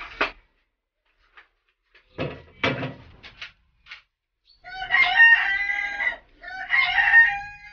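A chicken crowing twice in long, drawn-out calls, the first about halfway through and the second near the end. A few short knocks come before them.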